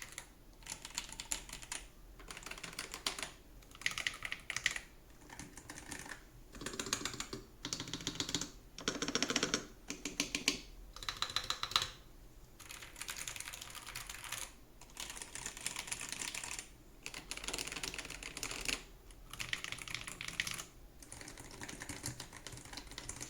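Typing on Hall effect magnetic-switch keyboards, one after another, in a sound test. There are quick runs of key clacks a second or two long, with short pauses between them.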